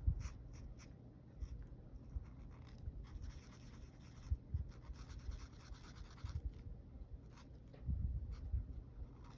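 Pen or marker scratching on paper, colouring in squares on a savings challenge tracker, in short strokes with light knocks of handling on a table.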